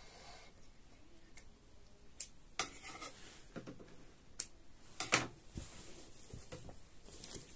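Irregular light clicks and short rustles of hands working with sewing materials and tools, the two loudest about two and a half and five seconds in.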